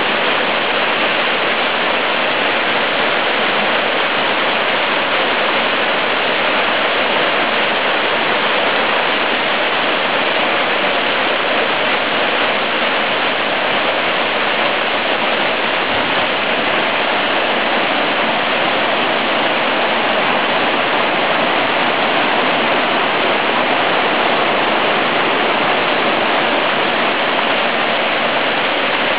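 Small waterfall on a little stream, water pouring down steadily without a break.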